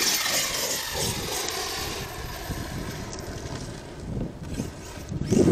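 Arrma Kraton 8S electric RC monster truck's brushless motor and drivetrain whining, the pitch falling steadily over the first two or three seconds. A short, louder rush comes near the end.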